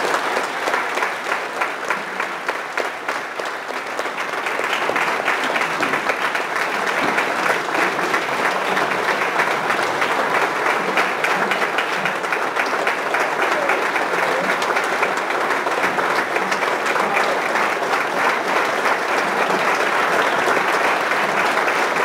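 Audience applauding steadily, a little softer a few seconds in and then swelling again.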